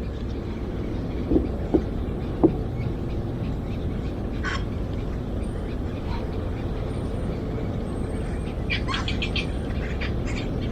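Birds chirping in short bursts over a steady low rumble of wind. Three short, low sounds come early, between about one and a half and two and a half seconds in.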